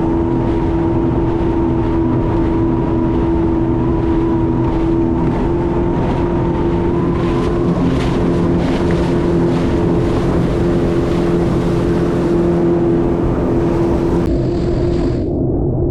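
2020 Sea-Doo FishPro jet ski's Rotax three-cylinder engine running steadily under way, a loud even drone with a hiss above it. The hiss cuts off abruptly near the end while the engine drone carries on.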